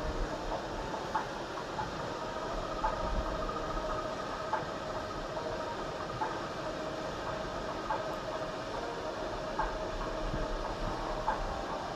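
Sea waves and spray rushing along a cruise ship's side as a steady wash. Under it runs a faint two-pitched mechanical hum, and light ticks recur about every second and a half.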